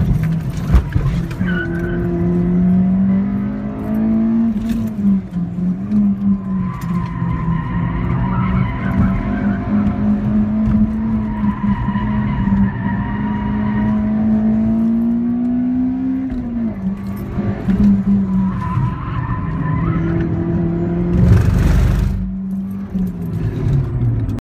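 Acura RSX-S's 2.0-litre four-cylinder engine heard from inside the cabin during a hard track run, held at high revs with the note rising and falling; about two-thirds of the way in it climbs steadily and then drops suddenly. Tires squeal at times, and there is a brief loud rumble near the end.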